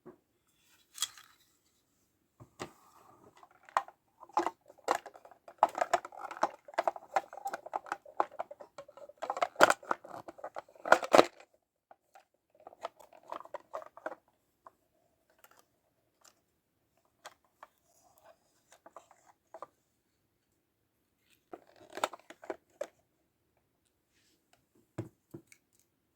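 Hands handling a Licca-chan miniature toy refrigerator set and its plastic packaging. A dense run of clicks and crinkly rustling comes first, then scattered small clicks and taps, another short burst of rustling, and a low knock near the end.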